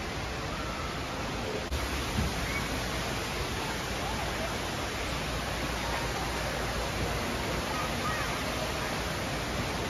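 Steady rushing of falling water, with faint voices in the background.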